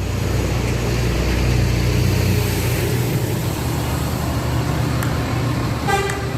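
A large bus engine running close by with a steady low rumble as the bus manoeuvres out, swelling over the first second. A brief tone sounds near the end.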